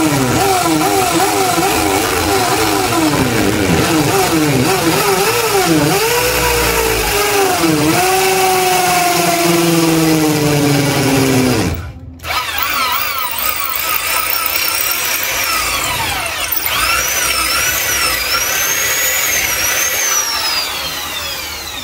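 Corded electric drill running as it bores into the wall, its motor pitch sliding up and down. It stops briefly about twelve seconds in, then starts again.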